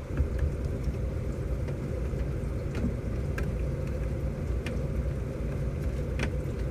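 A steady low rumble with scattered light clicks and scrapes, as potatoes are peeled by hand.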